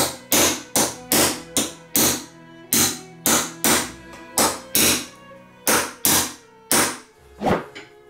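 Hammer striking a steel pin punch to drive the old metal pins out of a folding pocket knife's handle: about fifteen sharp taps, two or three a second, with short pauses between runs. Background music plays underneath.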